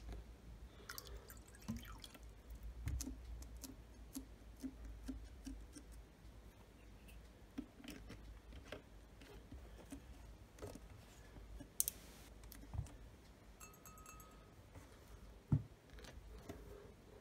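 Water poured from a plastic water bottle into a glass tumbler, dripping and glugging, followed by small clicks and taps as the bottle and glass are handled and the bottle is capped. A sharp knock near the end is the loudest sound.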